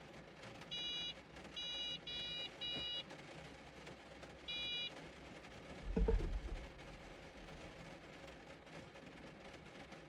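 Five short, high-pitched electronic horn beeps, pressed by hand at uneven intervals, then a single dull thump about six seconds in.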